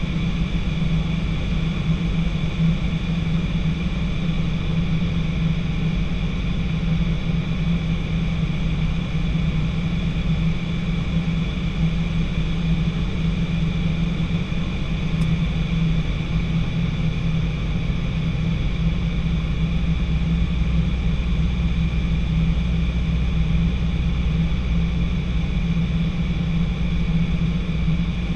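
Steady drone of a light training aircraft's piston engine and propeller in flight, heard inside the cockpit: an even low hum with a constant higher whine over it.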